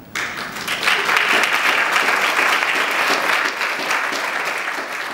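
Audience applauding: clapping breaks out suddenly, fills out within about a second, and eases off slightly toward the end.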